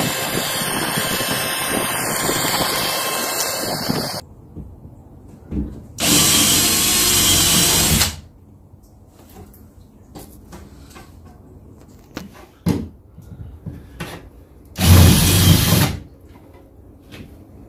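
A handheld power tool, drill-like, running in bursts. It runs for about four seconds, stops, runs again for about two seconds, then runs once more briefly near the end, with faint knocks in the gaps.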